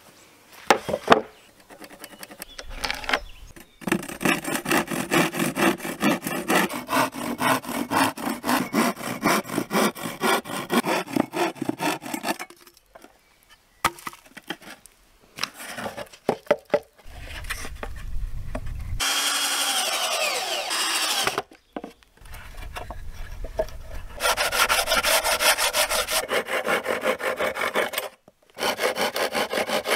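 Hand saw cutting through a sheet of OSB with fast, even strokes, in two long runs with pauses between them. A short, steady whir comes about two-thirds of the way through.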